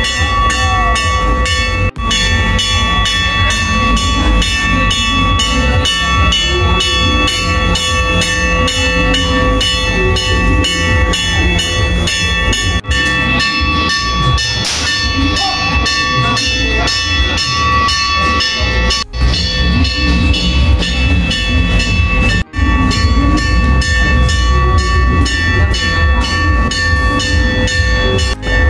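Chinese temple ritual percussion: drum, gongs and cymbals beaten at a fast even pace of about three strokes a second, with the metal's ringing tones held underneath.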